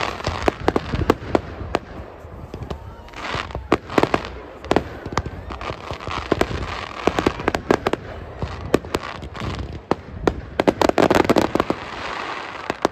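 Fireworks display: a rapid, uneven string of sharp bangs and crackles from shells launching and bursting, thickest near the end.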